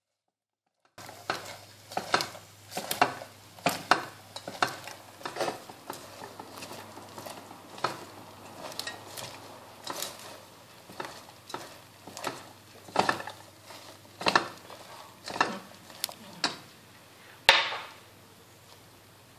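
Pink silicone spatula stirring caramel-coated popcorn around a stainless steel saucepan: repeated scraping and rustling strokes, about three every two seconds, starting about a second in, with a sharp knock against the pan near the end.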